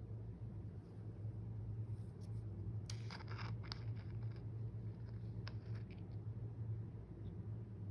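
Slime being worked by hand, giving faint scattered clicks and light scraping, with a small cluster about three seconds in and another near six seconds, over a steady low hum.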